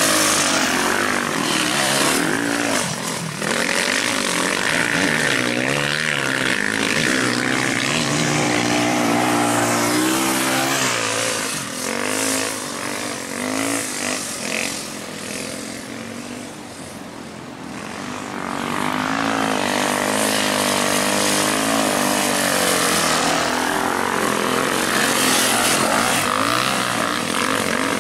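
Dirt bike engines revving hard through deep soft sand, the pitch climbing and dropping with the throttle. The sound eases off a little past halfway, then builds again as another bike comes close.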